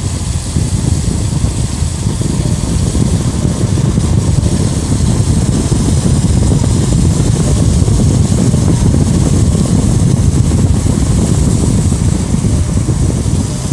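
Diesel locomotive of a container freight train running with a steady low rumble, growing slightly louder in the middle and easing near the end.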